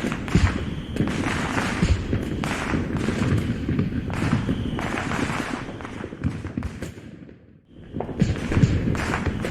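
Dubbed-in fireworks sound effect: a dense run of overlapping aerial-shell bangs and crackles. A short lull comes about three-quarters of the way through, then the bangs start again.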